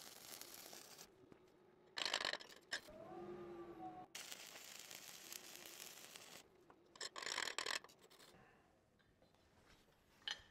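Stick-welding arc from a 3/32-inch 7018 electrode at about 100 amps, crackling and hissing in several stretches broken by short louder bursts, then dying away about eight seconds in. A brief wavering tone sounds about three seconds in.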